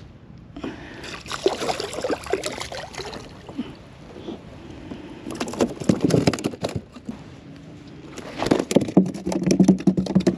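Freshly landed porgy (scup) flopping on the plastic deck of a fishing kayak: three bursts of rapid knocks and rattles, with light water sloshing.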